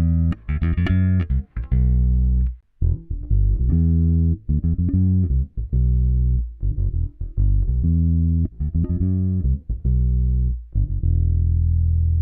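Yamaha Pulser Bass 400 electric bass guitar being played: a run of plucked low notes with short breaks between them, ending on a longer held note.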